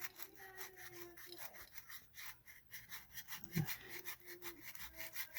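Sandpaper strip on foam board scrubbed quickly back and forth over aluminium under olive oil: a faint, fast, repeated rasping rub that abrades the surface clean for soldering.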